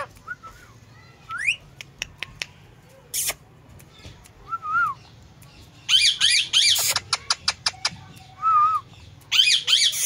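Indian ringneck parakeet calling in short squawks and chirps, the loudest wavering calls about six and nine and a half seconds in. A run of sharp clicks comes about seven seconds in.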